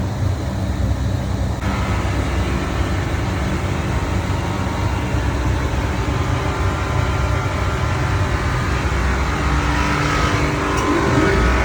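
Large HVAC chiller running during a restart: a loud, steady low machine hum. About one and a half seconds in a higher hiss joins it, and near the end whining tones come in over it.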